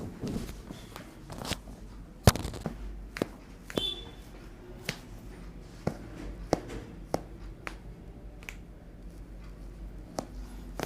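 Handling noise from a chiropractic treatment: a string of sharp clicks and taps, with one much louder crack about two seconds in.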